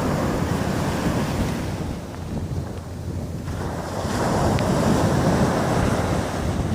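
Wind buffeting the microphone over ocean waves washing on the shore. The wind eases about two seconds in and gusts up again around four seconds.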